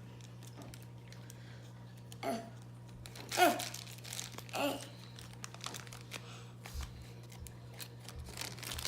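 Plastic toy packaging crinkling and tearing as it is opened by hand, in scattered crackles that grow denser in the second half. A few short vocal sounds break in about two, three and four and a half seconds in.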